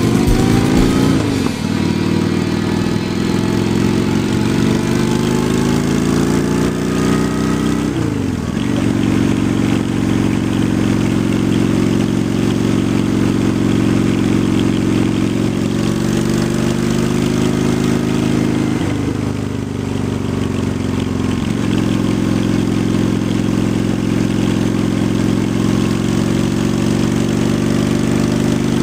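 2003 Honda Shadow 750's V-twin engine running at cruising speed, its pitch dropping and climbing again a few times as the throttle changes. Wind and road noise run under it.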